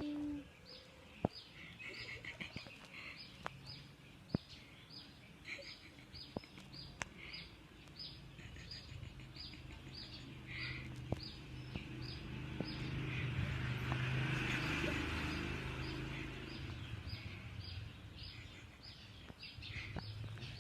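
A small bird chirping over and over, short high chirps at about two a second. A faint low hum runs under it, and a soft rushing noise swells and fades in the middle.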